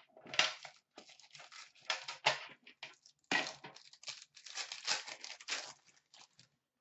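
Plastic wrapper of a hockey card pack being torn open and crinkled by hand, in a run of short, irregular rustling tears.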